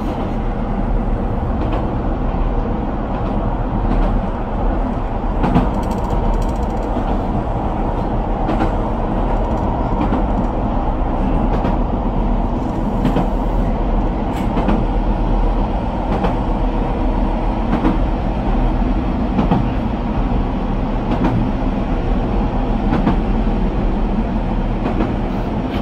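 Keihan Keishin Line electric train running, heard from inside the car: a steady rumble of wheels on the rails, with occasional short clicks.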